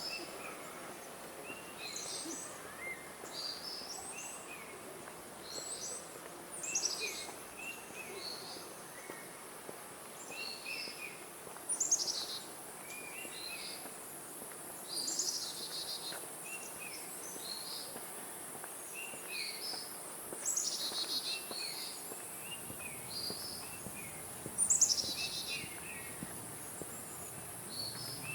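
Wild forest birds calling: short high chirps and quick falling trills, repeated every few seconds, with the loudest trills about 12, 15, 21 and 25 seconds in. Under them runs a steady high hiss from insects.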